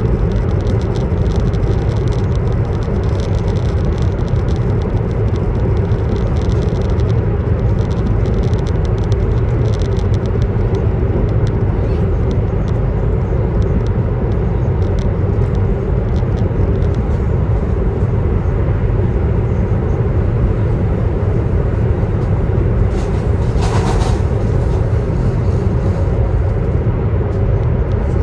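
Cabin noise aboard a CR400BF Fuxing high-speed electric multiple unit running along the line: a loud, steady low rumble with a hiss over it. About five seconds before the end, a brief higher hiss rises for about a second.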